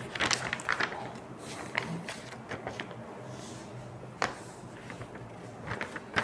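Sheets of paper rustling as they are handled, with scattered small knocks and one sharp click about four seconds in.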